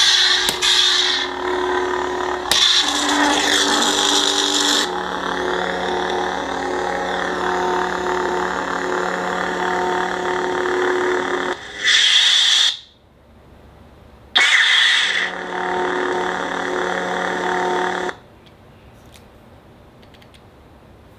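Lightsaber sound card playing its blade effects: a steady electronic hum with bright swing bursts in the first few seconds. About 12 s in there is a power-down sound and the hum stops. About 14 s in a sudden power-up brings the hum back, and it cuts off again about 18 s in, leaving only a few faint clicks.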